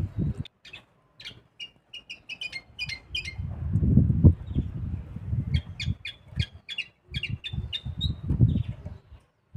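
A mixto, a hybrid finch, singing two quick runs of short, sharp chirping notes, the first about half a second in and the second about five and a half seconds in. Low rumbling noise runs under the song and is loudest between the runs.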